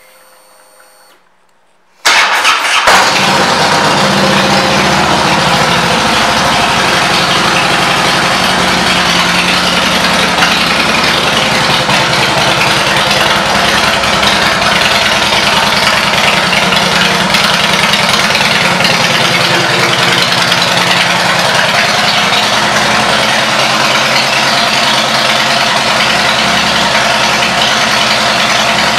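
A 2007 Harley-Davidson Heritage Softail Classic's Twin Cam 96 V-twin, breathing through Vance & Hines aftermarket pipes, starts up about two seconds in and then idles steadily and loudly.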